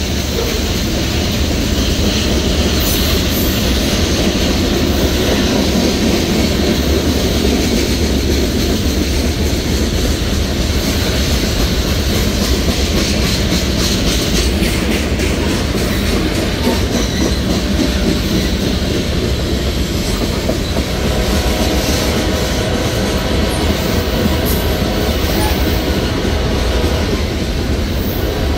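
Freight cars of a Norfolk Southern manifest train (covered hoppers, tank cars and boxcars) rolling past at close range: a loud, steady rumble and clatter of steel wheels on the rails.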